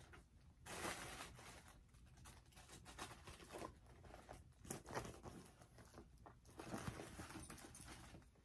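Faint, irregular rustling and crinkling from handling a Louis Vuitton Noé drawstring bag and the stuffing inside it, louder about one, five and seven seconds in.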